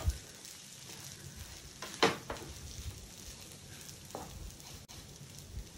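Wooden spatula stirring and tossing vermicelli in a frying pan over a faint sizzle of frying. The spatula knocks against the pan a few times, the sharpest about two seconds in.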